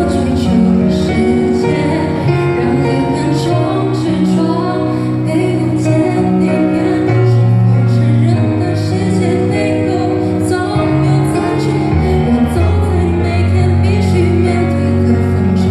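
A woman singing a slow Mandarin pop ballad over instrumental accompaniment with a steady bass line.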